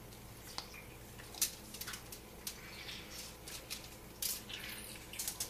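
Irregular light clicks, taps and short crinkly rustles of hands handling and arranging lemon pieces on the fish, with a sharper click about a second and a half in and a small flurry near the end.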